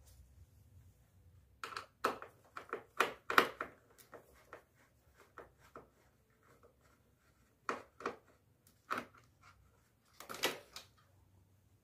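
Scattered sharp plastic clicks and knocks from hands handling a Daikin split air conditioner's remote receiver sensor module and its wire connectors, with a burst of several clicks about two to three seconds in and more about eight and ten seconds in.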